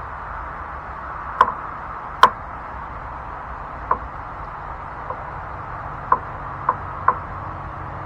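About seven short, sharp clicks and taps at irregular intervals, the two loudest in the first couple of seconds, over a steady background hiss: hand tools such as pliers knocking against parts while the mower's fuel pump and hoses are being taken off.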